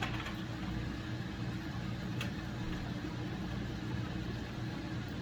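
A steady low hum of a running motor or appliance, with a couple of light clicks, one at the start and one about two seconds in.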